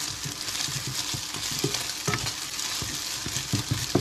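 Egg sizzling in hot lard in a frying pan while a spatula stirs and chops it, with a steady hiss broken by irregular light scrapes and taps of the spatula on the pan. The egg is being stir-fried until broken up and dry so the rice will not stick.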